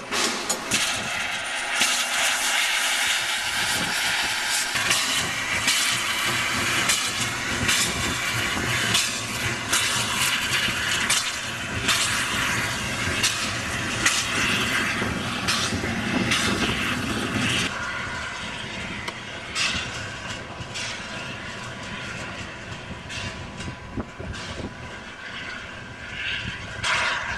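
Railway noise around a narrow-gauge train: a steady hiss under many metallic clanks and knocks, easing after about two thirds of the way, then a train's rail noise building near the end.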